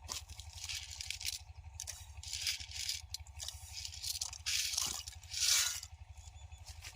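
Rustling and scraping in short, irregular bursts, the loudest near the end, over a steady low hum.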